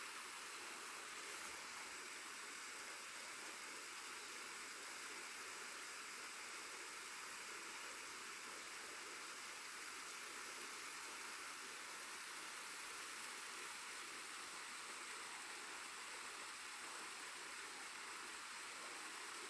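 Steady faint hiss with no distinct events.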